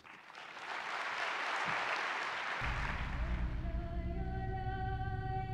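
Audience applause swelling after the end of a speech, fading out over the first three seconds or so. About two and a half seconds in, music with a deep bass cuts in, and a long held singing melody takes over.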